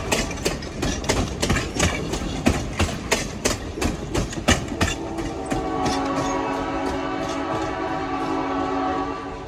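Railroad passenger coaches rolling past, their wheels clacking rapidly over the rail joints; the clacks thin out about halfway through. From about halfway, the locomotive's horn sounds one long steady chord that cuts off just before the end.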